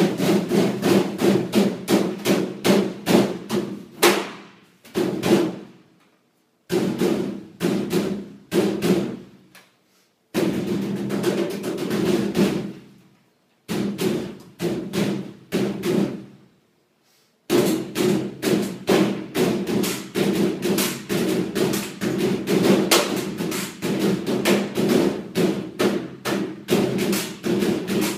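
Hands drumming on the metal cabinet of a tumble dryer, a fast rhythmic beat of slaps and thumps with a steady low ring under the strikes. It stops for short pauses four times, each time dying away before the beat starts again.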